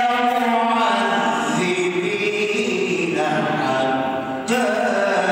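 A man reciting the Quran in the melodic tajweed style, holding long drawn-out notes that bend slowly in pitch. About four and a half seconds in he breaks off briefly and starts a new phrase.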